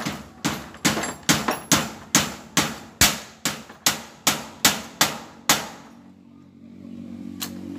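A run of about fourteen sharp, even knocks, two to three a second, as the top of a handheld electric drill's chuck is struck repeatedly by hand. The knocking stops about two thirds of the way through, and a low steady motor hum fades in near the end.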